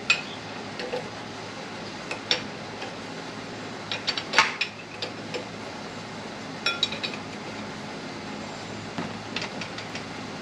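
Irregular metallic clinks and taps of a socket wrench and socket working the steel bolts on a tractor's hydraulic lift cover, with a few quick runs of clicks, over a faint steady hum.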